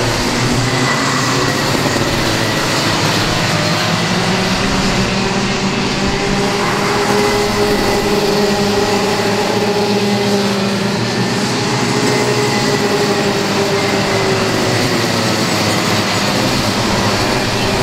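Several racing kart engines running hard as the karts pass on the circuit. Their pitches slide up and down against one another at a steady loudness.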